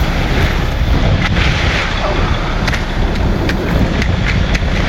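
Concrete mixer truck's diesel engine running in a steady low rumble, with a few sharp clicks.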